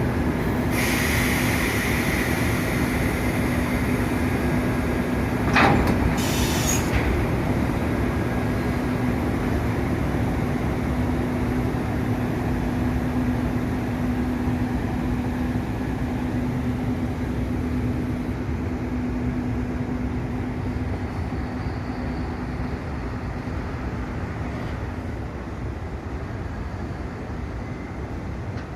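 JNR-type EF65 electric locomotive hauling a string of Chiki flat wagons past, with the steady rumble of wheels on track and a steady hum that fades out about two-thirds through. A single sharp clank comes about six seconds in, and the sound slowly grows quieter toward the end.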